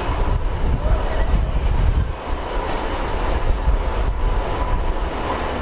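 Class 66 diesel-electric freight locomotive, its EMD two-stroke V12 engine running with a steady low rumble as it approaches hauling empty cement tank wagons. Wind buffets the microphone.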